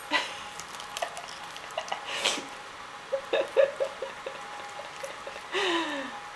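Cats chewing and tugging fresh Swiss chard leaves: crisp leaf crunches and rustles, with a quick run of crunches about three seconds in. Near the end there is a short falling voice-like tone.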